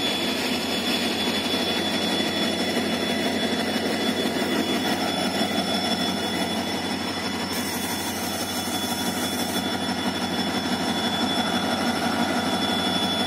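Twin WDG4 (EMD GT46MAC) diesel-electric locomotives idling while standing, their 16-cylinder two-stroke 710 engines running steadily, with a steady high-pitched whine on top.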